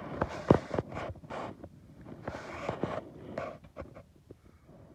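Irregular crunching, scraping and rustling of footsteps over dry brush and stony dirt, mixed with handling knocks. The bursts are loudest in the first few seconds and grow fainter near the end.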